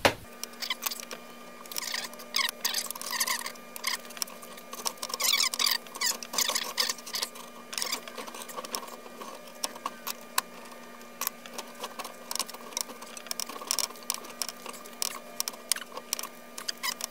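Steel strap being rolled into a ring through a vise-mounted roller made of two timing-belt tensioner pulleys and a turned barbell end: irregular squeaks and short chirps with sharp metal clicks and taps as the band is worked through the rollers. A faint steady hum runs underneath.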